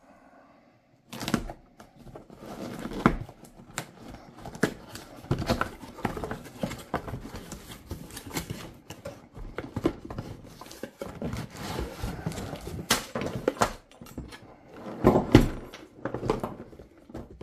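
Unboxing handling noise: a cardboard box being opened and a plastic air hose reel with its coiled rubber hose lifted out. There is rustling and scraping of cardboard with many clicks and knocks, starting about a second in, and several louder thumps as the reel is handled.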